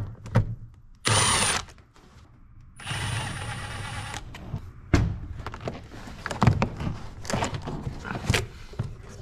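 A cordless power tool with a socket on an extension runs in two short spells, loosening the hose clamp on a 7.3 Powerstroke's rubber air intake tube. Then come a string of knocks and clunks as the intake tube is worked loose by hand.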